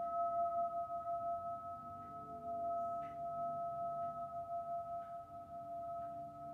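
A singing bowl ringing on in a long, steady sustain, two clear tones held together and slowly fading, with a few faint light clicks in the second half.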